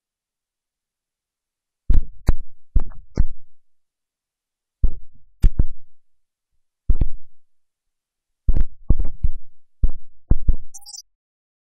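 A series of sharp, loud low thumps and knocks in four irregular clusters, each dying away quickly, with dead silence between them.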